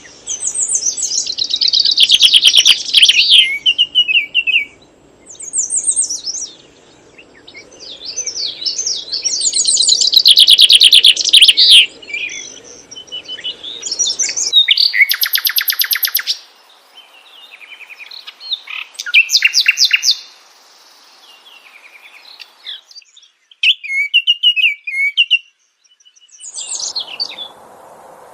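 Songbirds chirping and singing in loud bursts of rapid trills and chirps, with short pauses between phrases.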